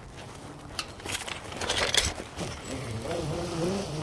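Scraping and rustling noises in the first half, then a person's voice from a little past the middle.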